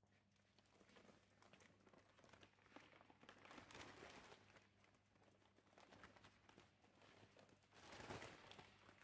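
Faint hiss of flour pouring from a paper sack into a spiral dough mixer's steel bowl, with the sack's paper crinkling. It swells twice, about a third of the way in and near the end.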